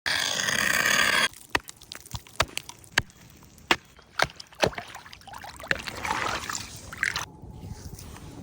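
About a second of loud splashing or sloshing water, then a scattering of sharp knocks and clicks with a brief rustling patch near the end.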